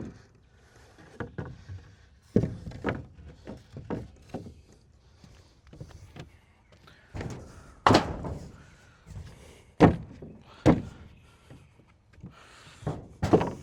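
Wooden knocks and thuds from deck boards being banged and worked into place on a shed's floor frame, at irregular intervals, the loudest about 8 and 10 seconds in.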